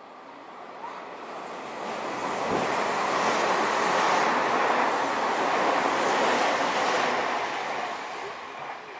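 Electric commuter train running past close by. The rumble of its wheels on the rails swells over the first few seconds, holds at its loudest for several seconds, then fades near the end.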